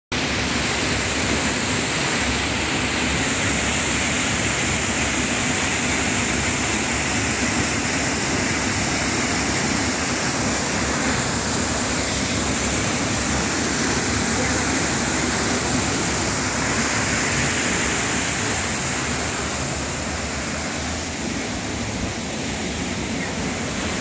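Small waterfall rushing steadily over rock, a continuous even roar of falling water that grows a little softer in the last few seconds.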